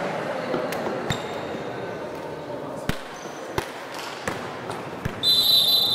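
A volleyball being struck and bouncing: several sharp thumps a second or so apart. Near the end a referee's whistle gives one long, loud blast, over faint voices.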